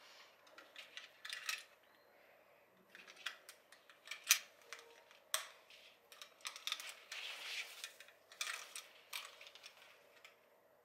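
Handling noise of a small plastic voice amplifier being turned over in the hands: scattered clicks and taps from its case and metal lanyard clasps, with rustling of the fabric strap. The sharpest clicks come about four and five seconds in.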